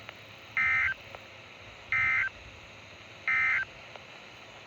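Three short bursts of EAS digital data tones from a NOAA Weather Radio broadcast, evenly spaced and each about a third of a second long. They are the end-of-message signal that closes the severe thunderstorm warning. A faint steady radio hiss lies underneath.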